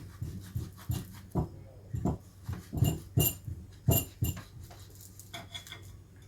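Irregular short taps and clinks of a knife and utensils against a plate as a roasted lemon is cut open, a few with a brief high ring.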